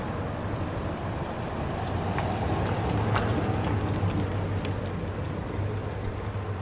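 Steady low vehicle-like hum, with a few light clinks as a glass bowl and lid are handled with oven mitts.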